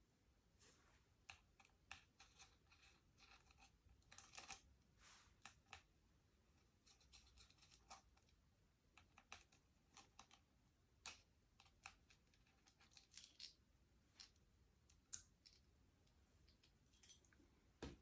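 Faint, irregular clicks and short scrapes of Allen keys, screws and metal parts being handled while an Artemis P15 air rifle is taken apart.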